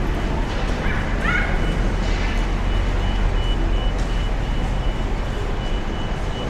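A dog yipping briefly a couple of times about a second in, over a steady low rumble of traffic.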